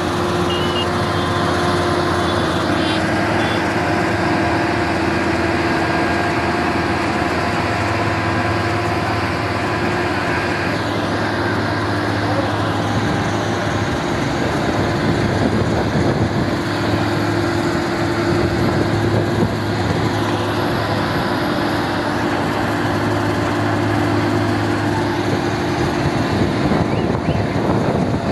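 Several heavy diesel trucks running hard together under load, hauling a very heavy multi-axle trailer in tandem. The engines hold a steady drone that shifts pitch a few times.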